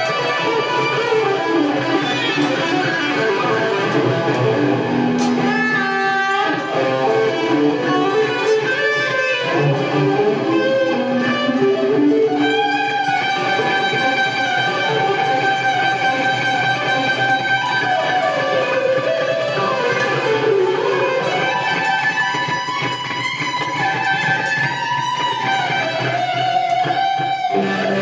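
Guitar-led music played back through a Sony speaker during a sound check, with melody lines shifting continuously and little deep bass.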